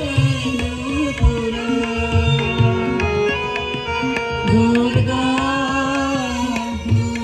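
Indian music with long, steady held melody notes over tabla and drum strokes.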